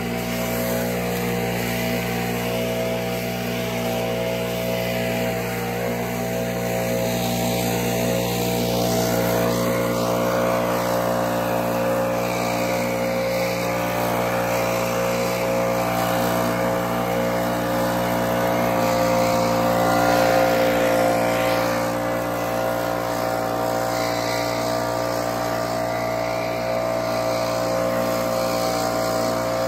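Leaf blower engine running steadily at a constant speed, swelling a little louder about twenty seconds in.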